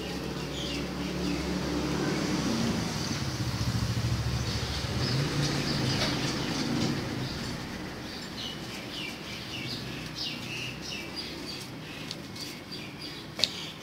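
A motor vehicle passes, its engine rumble swelling and then fading over several seconds. Small birds then chirp in short bursts, and a sharp click comes near the end.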